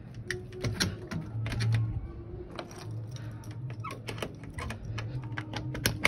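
Irregular clicks and light rattles of a wire-mesh cage door being handled and fastened shut with a twist of wire, over a steady low hum.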